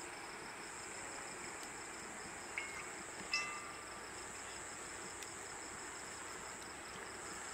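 Crickets chirping steadily, with two brief high clinks about two and a half and three and a half seconds in.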